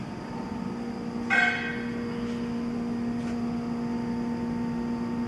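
A steady machine hum, with one sharp metallic clank about a second in that rings briefly, and two faint ticks after it.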